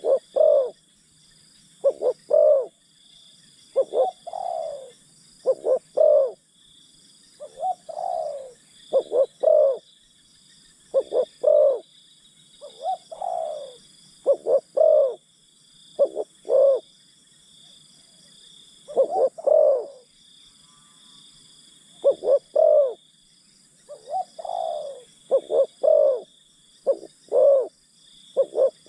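Spotted doves cooing: a repeated phrase of a couple of short notes and a longer falling coo, about every two seconds, with a brief gap around two thirds of the way through. A steady high-pitched buzz runs behind.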